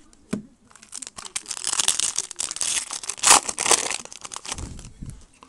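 Foil wrapper of a 2008 Upper Deck Heroes baseball card pack being torn open and crinkled by hand, a dense crackling rustle that builds for about three seconds and peaks near the three-second mark. A single knock comes just before it starts.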